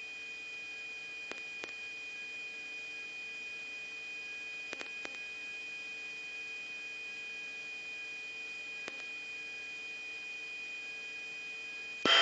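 Steady electronic hum and whine of a radio or intercom channel, made of several constant tones, one high tone loudest, with a few faint clicks. A loud burst of radio noise cuts in at the very end.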